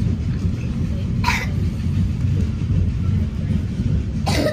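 Train carriage running along the track, heard from inside: a steady low rumble, with two brief sharp noises about three seconds apart.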